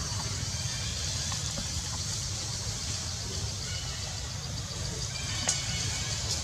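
Steady outdoor background: a low rumble under a faint, high, evenly pulsing hiss, with one sharp click about five and a half seconds in.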